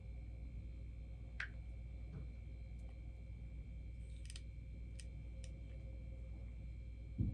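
Scattered light clicks and taps of a small plastic figure and its cardboard packaging being handled, with one louder dull thump near the end, over a steady low room hum.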